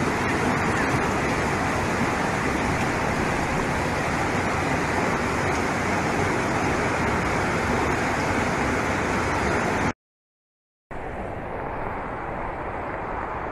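Floodwater rushing fast down a street in heavy rain, a loud steady rush. It cuts off suddenly about ten seconds in, and after a second of silence a quieter steady noise follows.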